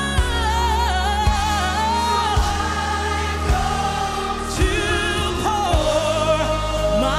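Gospel music: a lead singer and backing choir singing long held notes with vibrato over a band, with a steady bass and a drum hit about once a second.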